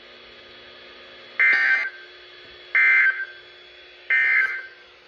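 NOAA Weather Radio end-of-message signal: three short, raspy bursts of SAME digital data, each about half a second long and about 1.3 s apart, over faint receiver hiss and a low steady hum. The bursts mark the end of the broadcast flood warning.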